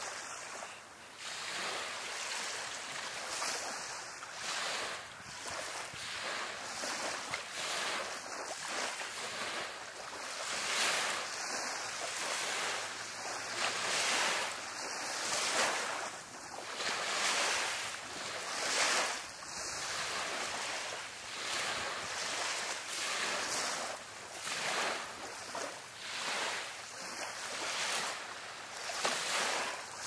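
Small surf washing onto a sandy beach: a steady hiss that swells and fades every second or two.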